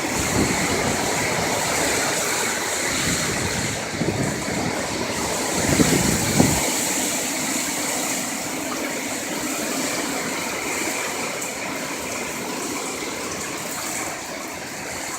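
Steady rushing noise of Hurricane Irma's wind and rain. Through the first half, gusts buffet the microphone with a low rumble and a few bumps, stopping abruptly about six and a half seconds in and leaving an even hiss.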